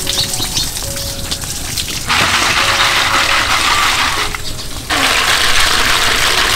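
Water gushing from a spout onto a woven bamboo basket of snails as they are rinsed. The stream starts abruptly about two seconds in, stops for a moment, then runs again.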